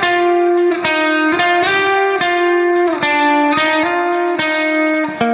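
Background instrumental music led by guitar, plucked notes ringing on at about two a second.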